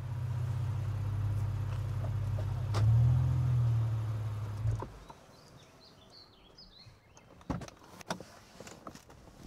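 Car engine running steadily, rising briefly about three seconds in, then cutting off suddenly about five seconds in. Quieter outdoor ambience follows, with two sharp knocks and faint bird chirps.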